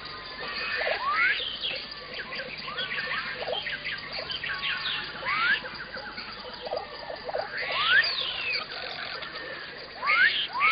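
Several small songbirds chirping and singing in a garden, with short rising whistled calls that come in a quick run near the end.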